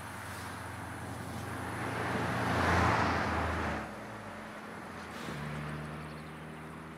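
A car driving past on a country road: engine and tyre noise rise to a peak about three seconds in, drop away sharply, then a fainter engine note fades as the car drives off.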